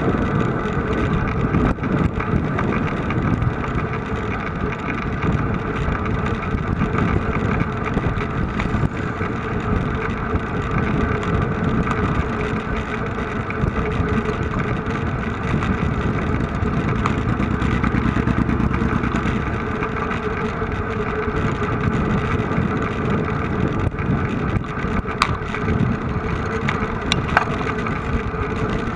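A motor-vehicle engine running steadily, with a few short clicks late on.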